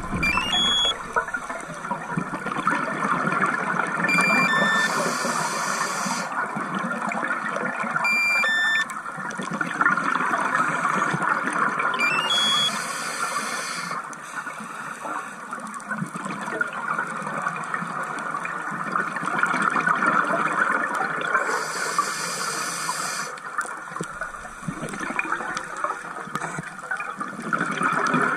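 Scuba breathing underwater: steady bubbling from exhaled air, broken about every eight seconds by a hiss of a regulator breath lasting a second or two, with brief whistling tones just before some of the breaths.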